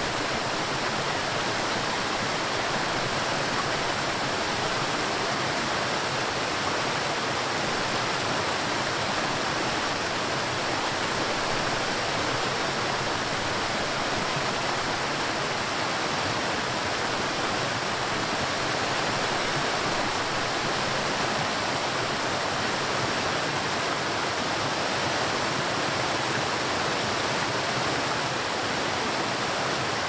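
Waterfall cascading down over rocks, a steady, even rush of falling and splashing water.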